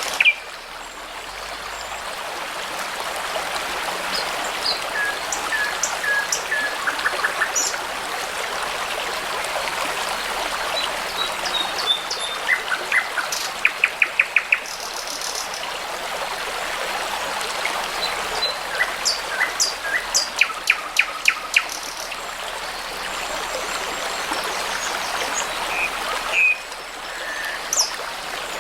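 A babbling brook runs steadily while songbirds sing short, scattered phrases over it. Quick runs of repeated notes come about halfway through and again a few seconds later.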